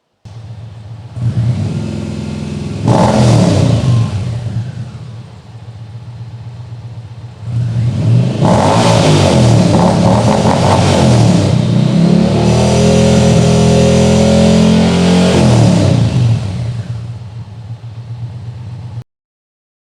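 Indian motorcycle V-twin running through an aftermarket Lloyd'z slip-on exhaust, idling and being revved by hand: a short blip about a second in, a sharper rev near three seconds, then a long high rev from about eight to sixteen seconds before it settles back. The sound cuts off abruptly shortly before the end.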